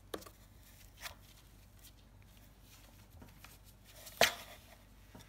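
Cat scrabbling and rustling against a cardboard box: a few short scrapes and knocks, the loudest about four seconds in.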